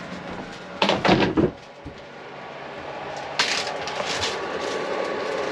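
Bare feet stepping down wooden companionway steps, with a short run of knocks about a second in. A steady hiss starts a little past halfway.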